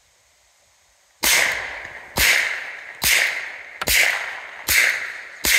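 Norinco NP34 9mm pistol with a B&T suppressor firing six shots, about one every 0.8 s, starting about a second in. Each is a sharp crack with a short echoing tail, still loud despite the suppressor.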